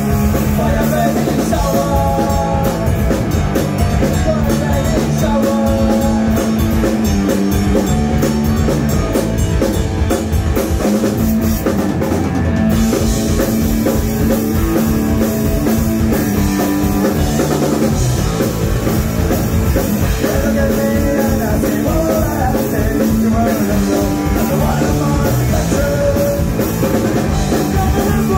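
Live rock band playing loudly: electric guitar, electric bass and drum kit, running without a break.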